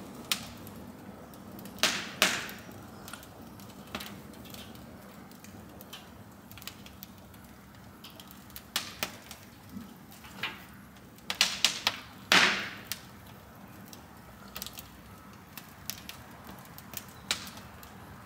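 Fire burning in a perforated drum brazier under a traction engine's firebox, crackling with irregular sharp pops, loudest about two seconds in and in a cluster around twelve seconds in.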